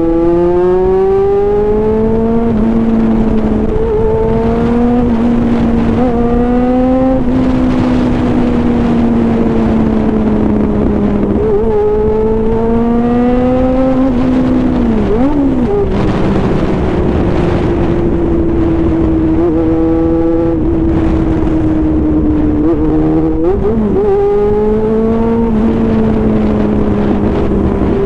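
Honda CB400 motorcycle engine under way, pulling up through the gears: its pitch climbs, then drops at each upshift several times. Around the middle there are a couple of quick throttle dips, then a stretch at a steady pitch, and more climbs and shifts near the end. Wind and road rush runs underneath.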